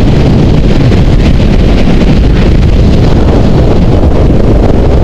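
Heavy wind buffeting the microphone of a camera carried by a rider moving fast downhill on skis, a loud, unbroken low rumble with a flickering hiss of snow under the skis above it.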